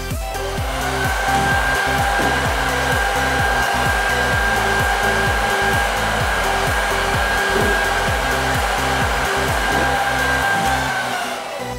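Hand-held electric hair dryer running: its motor spins up about half a second in, blows steadily with a whine, then winds down near the end. It is starting again after the step-down voltage converter feeding it restored power once it had cooled from an over-temperature shut-off.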